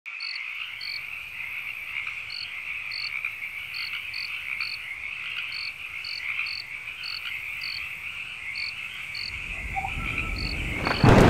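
Evening chorus of frogs and insects: a steady high trill with short, higher peeps repeating irregularly, about one or two a second. A low rumble builds from about nine seconds in, and a louder sound cuts in just before the end.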